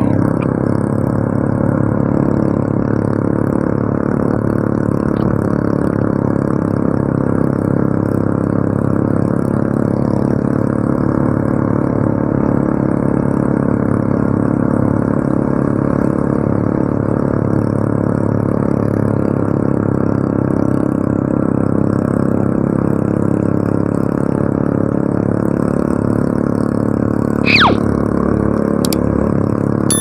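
Honda Revo 110 motorcycle's single-cylinder four-stroke engine running steadily at cruising speed. Near the end there is a brief high falling tone.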